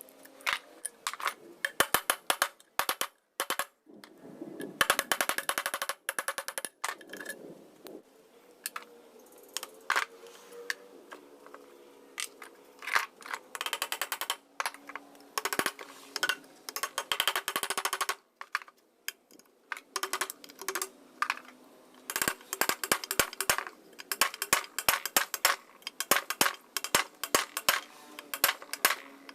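Metal parts of a Butterfly sewing machine clicking, clinking and tapping as they are worked on by hand, in irregular clusters of sharp clicks.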